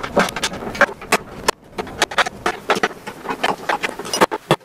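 Quick, irregular clicks and knocks of hand work on Delrin luggage-mount parts and their bolt hardware, with several taps close together and a sharper knock about a second and a half in.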